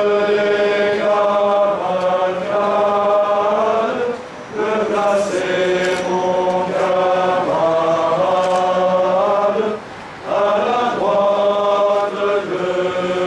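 A group of voices singing a slow chant together in long held phrases, pausing briefly about four seconds in and again near ten seconds.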